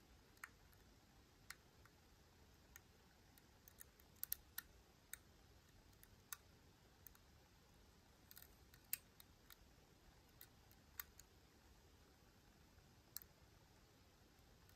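Faint, irregular small metallic clicks of a lock pick working the pins inside a Miwa U9 lock cylinder under tension, some coming in quick little clusters.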